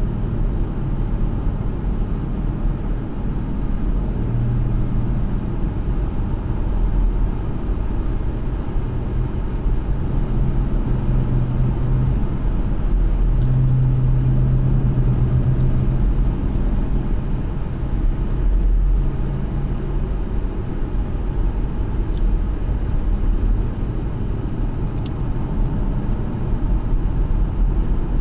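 2013 Ford Mustang's 3.7-litre V6 engine and road rumble heard from inside the cabin while driving at moderate pace. The engine note holds a low, fairly steady pitch, swelling and easing off a few times and loudest about halfway through.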